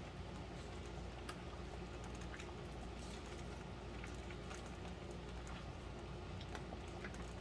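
Skillet of steak in thickened cornstarch gravy simmering: a faint steady bubbling with scattered small pops and ticks.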